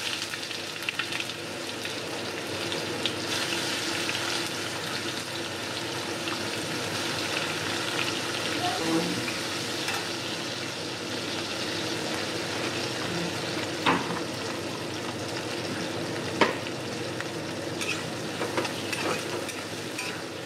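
Tomatoes and whole spices sizzling steadily in hot oil in a kadai. A metal spatula stirs and scrapes through them, with a few sharp knocks against the pan, the loudest about two-thirds of the way through.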